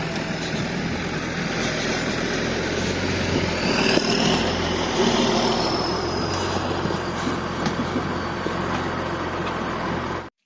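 A vehicle engine running steadily under heavy, even rumble and noise. It starts and cuts off abruptly.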